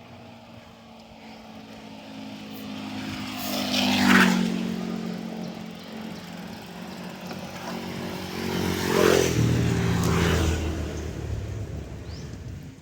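Two motor vehicles drive past close by, one about four seconds in and the next about nine seconds in. Each engine's note swells and then drops in pitch as it goes by.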